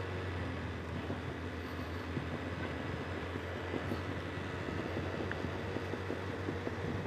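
Benelli TRK 502X parallel-twin engine on the overrun going downhill, its exhaust popping irregularly, over steady riding noise.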